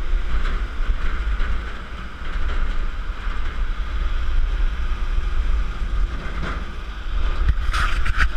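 Wind buffeting an action camera's microphone over the rumble of a truck driving on a rough dirt road, heard from the open cargo bed. A few sharper knocks near the end.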